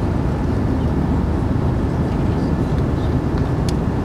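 Steady low rumble of airliner cabin noise, engines and rushing air, with one light click near the end.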